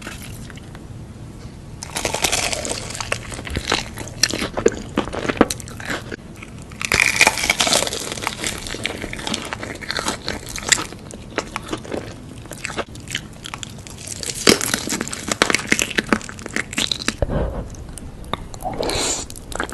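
Close-miked crunchy chewing and biting into food, in several bouts of dense crackling with short pauses between them.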